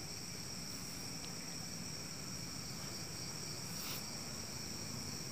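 Crickets and other night insects trilling in a steady, high-pitched chorus, with a brief faint rustle about four seconds in.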